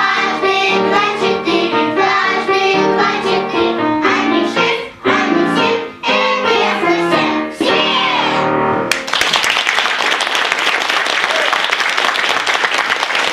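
Children's choir singing with instrumental accompaniment until the song ends about nine seconds in, then audience applause.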